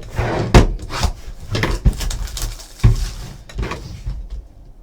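Trading cards and their plastic holders or packaging being handled on a table: several sharp knocks and taps with rustling between them, quieter near the end.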